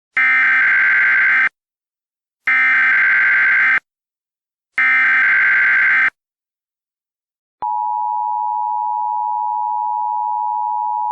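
Emergency Alert System alert opening: three bursts of SAME header data tones, each just over a second long and evenly spaced. About a second and a half after the last burst, the steady two-tone EAS attention signal starts.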